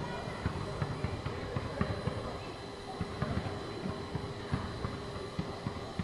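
Basketball dribbled and bounced on a court: an irregular run of dull thumps, about two a second.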